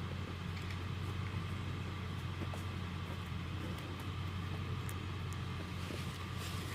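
An engine idling with a steady low hum, along with a few faint ticks.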